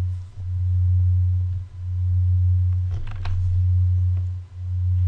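A loud, steady low hum on one deep tone, dipping briefly about every second and a half. A couple of faint mouse clicks come about three seconds in.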